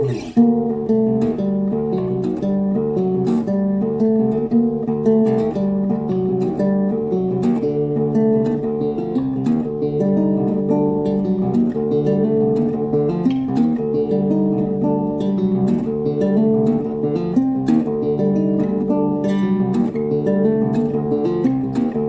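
Acoustic guitar played solo in a quick, constantly moving figure of plucked notes.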